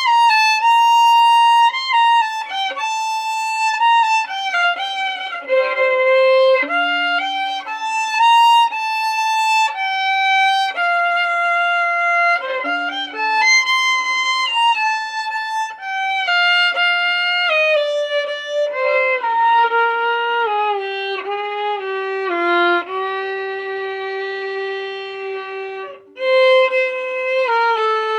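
Violin playing a melody, the notes moving about once a second, with a short break near the end.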